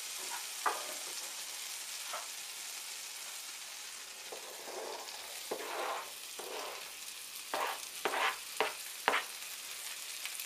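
Melted butter sizzling steadily in a frying pan as chopped onion goes in, with a wooden spoon scraping and tapping the onion off a plastic chopping board. A cluster of sharp taps comes about three-quarters of the way through.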